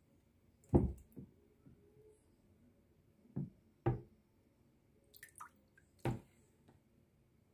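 Water splashing and dripping in a shallow plastic tub as a hand net is moved through it, with four short low thuds, the loudest about a second in.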